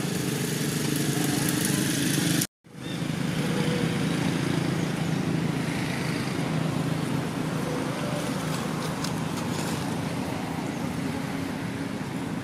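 An engine running steadily, a low drone with hiss above it, cutting out completely for a moment about two and a half seconds in.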